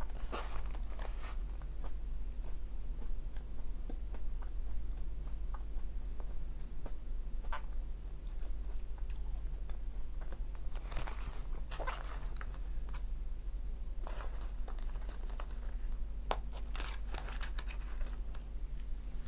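Close mouth sounds of a person chewing McDonald's french fries: clusters of soft wet clicks and smacks coming in several bursts, over a steady low hum.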